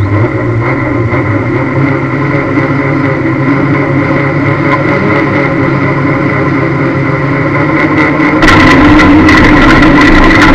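Lada demolition-derby car's four-cylinder engine idling, heard from inside the cabin. About eight seconds in it revs up sharply, and the sound turns much louder and harsher.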